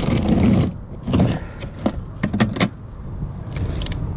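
Irregular clicks and knocks from a magnet-fishing magnet and rope being handled while plant matter is cleared off, over a steady low rumble.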